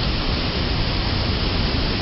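Waterfall's steady rush of falling water: a dense, unbroken noise with a heavy low rumble.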